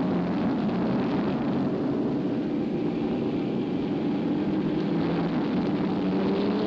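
Early open-wheel race car engines running flat out at speed, a steady droning.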